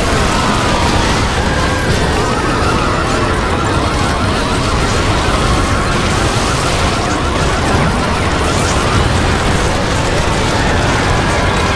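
The soundtracks of 39 cartoon episodes playing at once, overlaid into a loud, steady din of blurred music, voices and sound effects. A fast rattling pattern stands out above the mass for several seconds in the middle.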